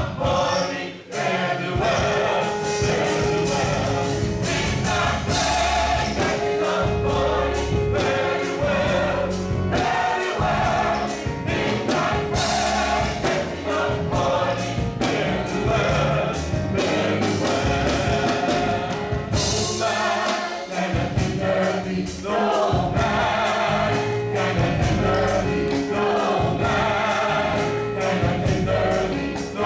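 Gospel choir singing with a live band, steady bass and drums under the voices.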